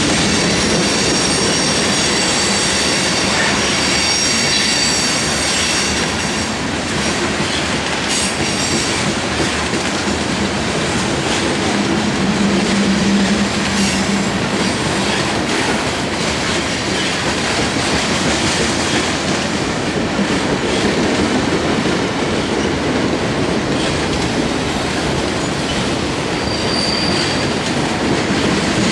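Freight train cars rolling past close by: steady wheel-on-rail noise, with high-pitched wheel squeal through the first several seconds and occasional clicks of wheels over rail joints.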